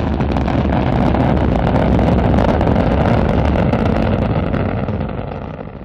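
Rocket launch roar: a loud, steady rumbling noise with a crackle through it, fading away near the end.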